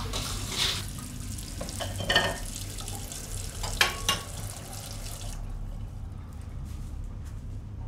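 Water running from a kitchen tap into the sink, with a few knocks and clinks, then turned off about five seconds in.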